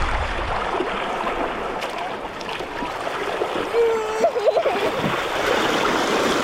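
Waterfall and stream water rushing steadily, with a person's voice calling out briefly about four seconds in.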